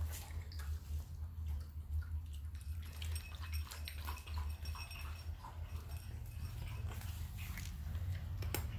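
Tabby cat crunching dry kibble from a bowl: an irregular run of small crisp crunches and clicks, over a steady low hum.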